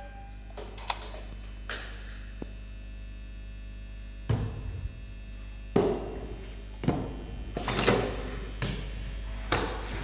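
Irregular knocks and thuds, about nine in ten seconds and unevenly spaced, some with a short ringing tail, as objects are struck in a free sound improvisation. A steady low hum runs underneath.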